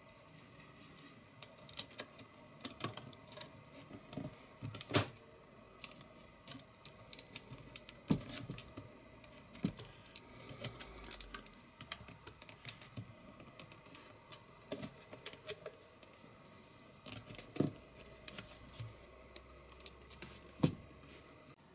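Irregular small clicks and taps of hard plastic and metal as the Poqet PC palmtop's case is handled and worked on with a small screwdriver, with a few sharper clicks, the loudest about five seconds in.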